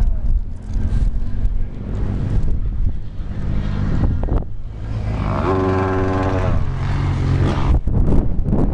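Arctic Cat Wildcat side-by-side's engine running steadily under way across rough ground, with a higher pitched tone held for about a second about halfway through. Wind buffets the microphone near the end.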